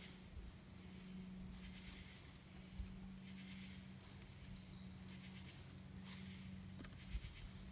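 Quiet forest ambience with a steady low hum. Several short, high, falling chirps come in about halfway through and again near the end, and there are a couple of soft thumps.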